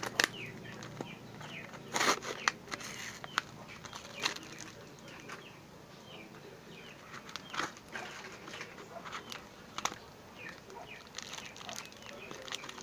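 Scissors cutting through a cardboard parcel, with the cardboard rustling and crinkling as it is handled: scattered snips and crackles, the loudest cluster about two seconds in. Birds chirp faintly in the background.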